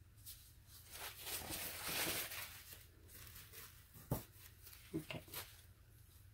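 Soft rustling of a paper towel being handled and rubbed on a table, swelling and fading over a couple of seconds, followed by a few light taps of small items set down.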